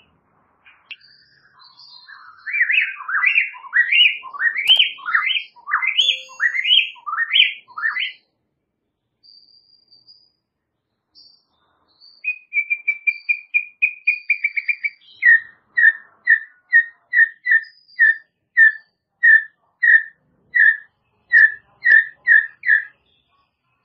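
White-rumped shama (murai batu) singing. A run of loud rising whistled notes gives way to a pause, then a fast trill of short notes, then a long series of repeated whistles at about two a second.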